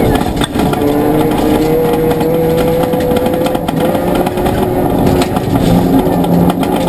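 Ford Fiesta ST rally car's engine pulling hard on a gravel stage, heard from inside the cabin. Its note climbs steadily, then changes about five seconds in, over a constant road rumble with a few sharp knocks from stones hitting the car.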